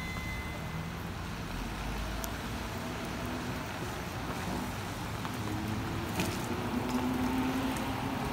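Tyres hissing on a wet road as cars pass, while a Tosaden 600-type tram draws near. Its motor and gear whine rises and grows louder over the last few seconds.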